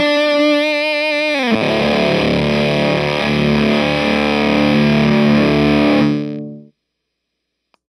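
Electric guitar through an EarthQuaker Devices Terminal fuzz pedal, a take on late-60s Japanese fuzz. A held fuzzed note wavers with vibrato, drops in pitch about a second and a half in into a low, thick chord, which rings on and dies away about six and a half seconds in.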